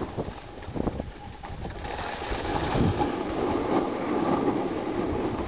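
A sled sliding downhill over packed, crusty snow: a steady scraping rush that grows louder about two seconds in, mixed with wind on the microphone.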